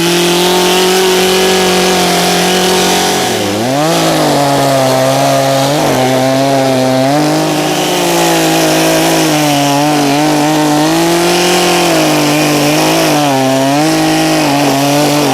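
Two-stroke chainsaw running at high revs while cutting the felling notch into a tree trunk. Its engine pitch dips and recovers again and again as the chain bites into the wood, sagging deepest about three and a half seconds in.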